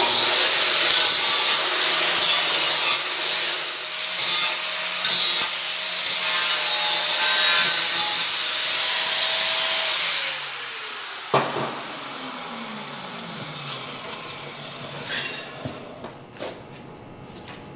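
Angle grinder with a flap disc dressing the sharp sawn edges of a steel plate, grinding in uneven strokes for about ten seconds. The grinder is then released and its whine falls away as it spins down, followed by a few light metal clinks.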